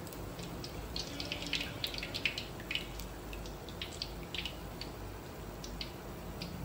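Hot oil dripping from a mesh strainer of deep-fried rice papdi back into the kadhai, in irregular small ticks and crackles that thin out toward the end as the papdi drain.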